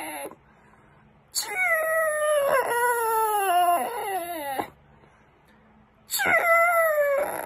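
Two drawn-out, animal-like wailing calls, each wavering and sliding down in pitch. The first starts about a second and a half in and lasts about three seconds; the second begins about six seconds in.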